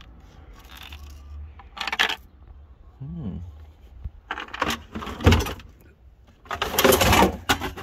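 Old plastic car light units and loose parts clattering and rattling as they are handled and rummaged through in a pile, in several short bursts, the loudest near the end.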